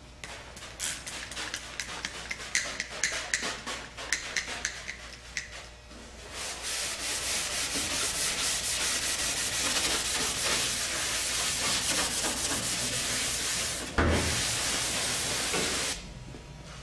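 A trigger spray bottle spritzing etch in a quick run of short squirts, then a red Scotch-Brite pad scrubbing the wet bare aluminium skin of a Cessna 150 wing in fast continuous strokes, scuffing off the shine to give the metal a tooth for primer. There is a single knock near the end, and the scrubbing stops abruptly.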